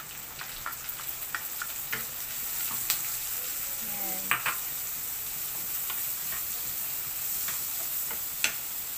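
Frozen mixed vegetables sizzling in hot oil in a frying pan over a gas flame, just added, with a wooden spatula stirring and tapping against the pan. The sizzle swells over the first couple of seconds and then holds steady, broken by sharp spatula clicks.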